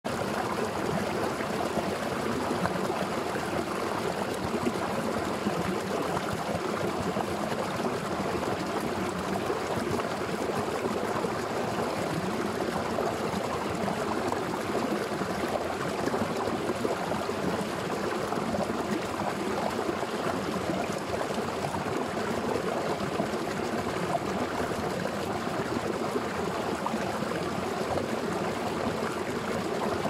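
Water pouring from an arched stone outlet and splashing into a foaming pool below, a steady rush of falling and churning water.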